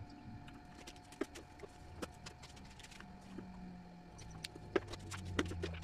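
Scattered light clicks and knocks of PVC pipes and fittings being handled and fitted together on a tile floor, the sharpest few near the end. A low drone comes in about three seconds in.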